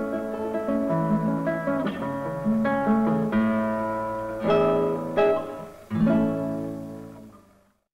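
Acoustic guitar music: picked notes with a few strummed chords, fading out near the end.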